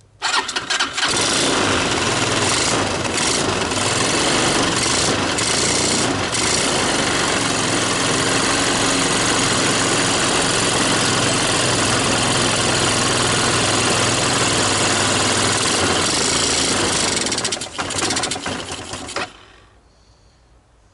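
Wildfire 300 4x4 ATV engine starting on choke. It catches within about a second and runs steadily, fired by a portable CDI box through a new carburetor. Near the end it turns uneven and stops.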